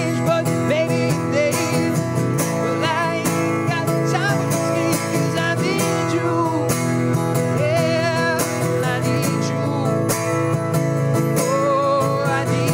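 Solo acoustic performance: an acoustic guitar strummed steadily, with a sung melody line wavering in pitch over it.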